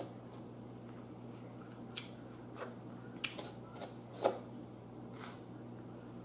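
Metal fork scraping and clicking against a styrofoam takeout container as fried rice is picked up: a string of short scrapes, the loudest a little past four seconds in, over a low steady hum.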